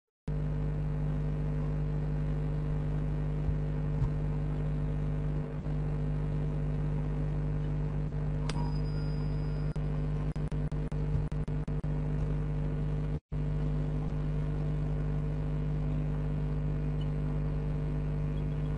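Steady mechanical drone coming through a voice-chat microphone, which the listeners guess is a septic-tank vacuum truck pumping. A few faint clicks come about ten seconds in, and the sound cuts out for an instant about thirteen seconds in.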